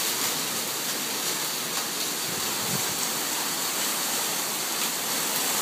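Heavy rain pouring down in a steady, unbroken hiss during a downpour.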